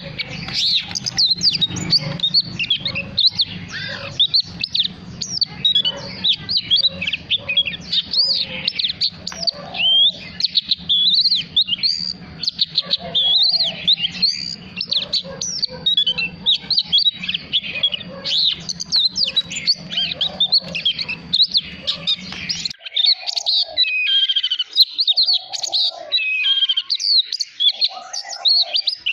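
Male oriental magpie-robin singing a long, varied song of quick whistled and chirping phrases with hardly a pause. A low steady hum runs underneath and stops suddenly about three quarters of the way through.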